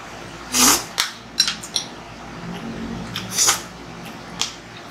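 Metal spoon stirring vegetables in a soup pot: scattered clinks and scrapes, with two louder short swishing sounds, one under a second in and one past three seconds.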